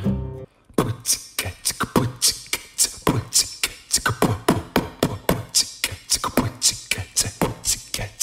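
A man beatboxing: a fast, steady rhythm of drum-like mouth hits and hisses, about five or six a second. It starts just after background music cuts off about half a second in.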